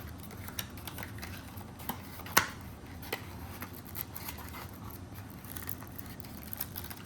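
Small clicks and taps of a retail pack being handled and opened, with one sharper click about two and a half seconds in.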